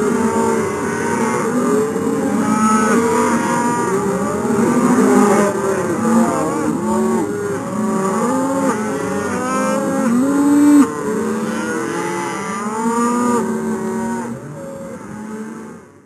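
A herd of dairy cattle mooing, many long overlapping calls at once, fading out near the end.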